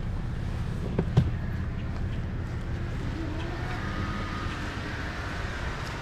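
Minivan cabin while driving slowly: a steady low rumble of engine and tyres, with two short knocks about a second in.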